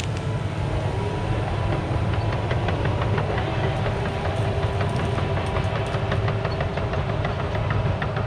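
Caterpillar 973C track loader running, heard from a distance: a steady low diesel rumble with faint steady whining tones over it and a rapid scatter of clicks and clanks.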